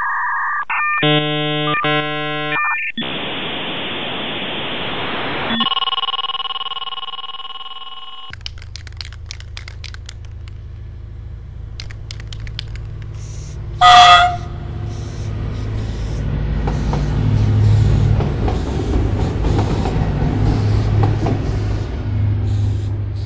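Electronic test-card beeps that switch pitch, then a burst of static hiss and another steady tone. About eight seconds in they give way to a low droning soundtrack that swells toward the end, with one brief loud hiss near the middle.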